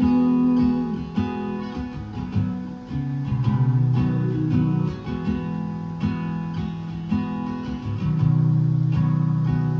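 Acoustic guitar strumming chords in an instrumental break, after a held sung note ends about a second in.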